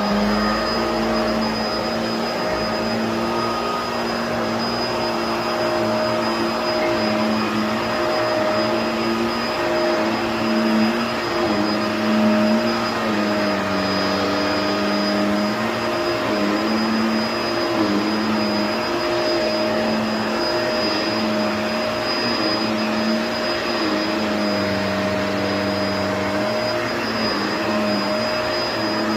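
Vacuum cleaner running steadily: an unbroken rushing hiss under a motor hum whose pitch wavers slightly, with a faint high whine.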